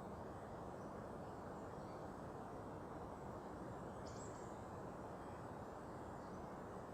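Steady, low outdoor background noise with a single brief, faint, high bird chirp about four seconds in.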